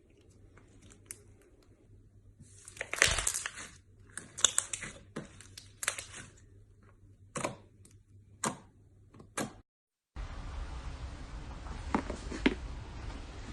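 Slime being squeezed and pressed by hand, giving a series of crackling, popping squelches every second or so. The sound breaks off abruptly about ten seconds in, and after that a few faint clicks are heard over a steady hiss.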